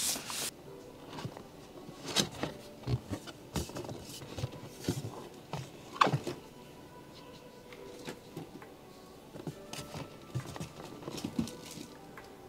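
Cardboard and paper packaging of a Fujifilm X100V camera box being opened by hand: scattered light taps, scrapes and rustles as flaps are folded back and a plastic-wrapped booklet is lifted out, with one sharp click about six seconds in.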